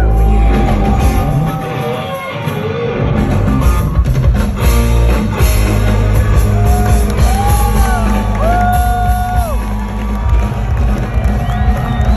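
Rock band playing live and loud, with heavy drums and bass under a singer holding long notes that slide in pitch.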